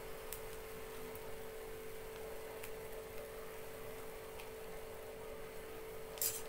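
A steady hum on one even tone over a faint hiss, with a few light ticks.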